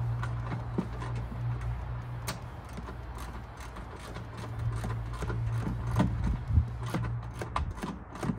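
Hand ratchet with a 10 mm deep-well socket clicking in irregular runs as it turns the nut on a ground terminal. A steady low hum runs underneath.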